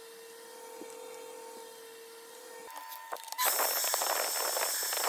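Fast-forwarded workbench handling noise: a faint steady hum, then, a little over three seconds in, a loud dense rattling clatter of rapid clicks for about two seconds.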